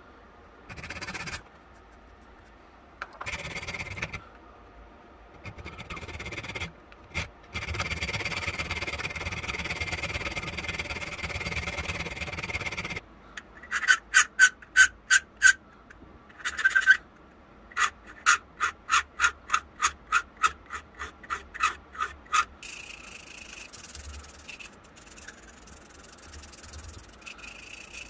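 Hand file taking material off a small steel trigger spring: a steady rasping stretch, then two runs of quick back-and-forth strokes, about three a second, the spring being thinned to fit.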